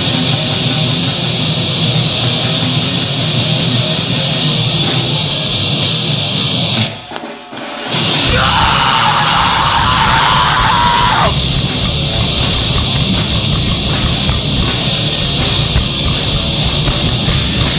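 Live rock band playing loud, the recording overloaded by mic clipping. About seven seconds in, the band cuts out for under a second, then crashes back in with a high note held for about three seconds.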